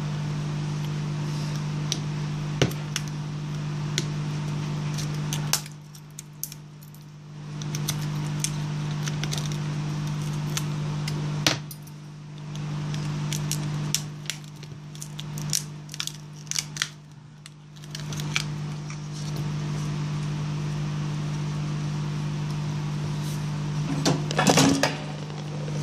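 A hot air gun runs with a steady hum that cuts out briefly three times. Over it come many sharp clicks and scrapes of metal pry tools and a flat blade scraper against the phone's glass and frame, as the old taped-in display is worked loose, with a cluster of clicks and handling noise near the end.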